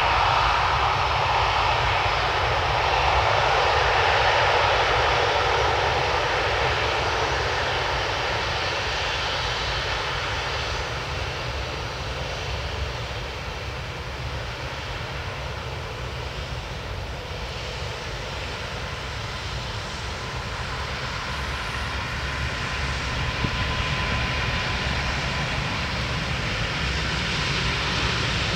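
Airbus A380's four jet engines running at taxi power as the airliner rolls slowly past: a steady jet rumble and whine that eases a little midway and builds again near the end.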